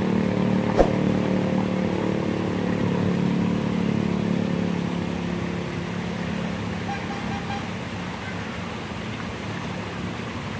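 A large bus engine running as the bus drives past and away, slowly growing fainter, with one sharp click about a second in.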